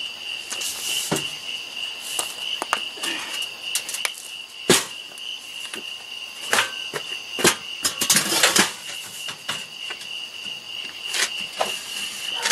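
A steady high-pitched chorus of night insects, with scattered knocks and clatters of things being handled. The sharpest knock comes almost five seconds in, and a longer rustling scrape about eight seconds in.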